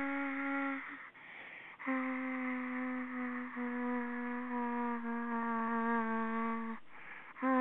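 A voice holding long, steady, hum-like notes that sag slightly in pitch. One note ends about a second in, and a second runs for about five seconds after a short break.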